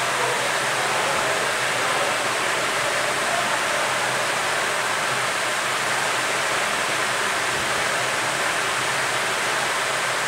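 Hot-air rework gun blowing a steady hiss onto a mobile phone motherboard, heating the board to desolder its tin shield can.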